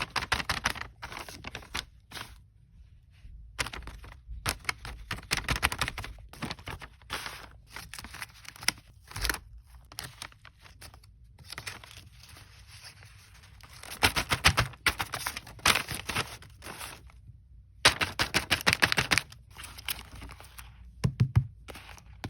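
Plastic blind-bag packaging being crinkled, handled and torn open, a crackling that comes in irregular bursts with short pauses.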